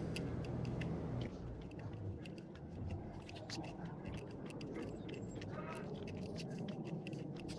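Many small birds chirping: short, high calls in quick succession throughout, over a faint low hum in the first second.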